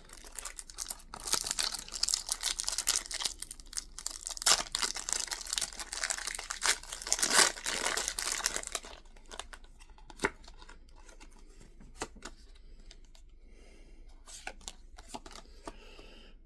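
A Pokémon card booster pack's foil wrapper being torn open and crinkled by hand for about nine seconds. After that come a few light clicks and rustles as the cards are handled.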